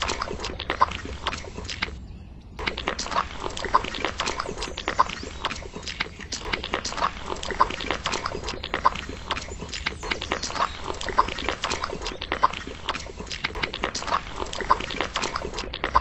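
Wet cement being poured and then worked with a small trowel: a dense run of wet scraping and slapping strokes, with a short pause about two seconds in.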